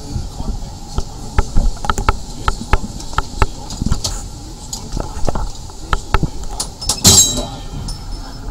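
The 1934 tram Nesa 929 running along its track, heard from the driver's cab. Irregular clicks, knocks and rattles come from the wheels and cab fittings over a low rumble, with a short, louder scraping burst about seven seconds in.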